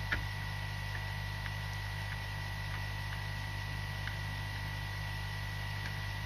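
Steady electrical mains hum with a faint, thin high whine over it, and a few light, scattered ticks from small handling.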